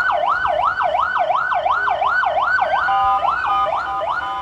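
Fire engine siren in a fast wailing yelp, sweeping up and down about three times a second. A steady blaring tone sounds over it for about a second, about three seconds in.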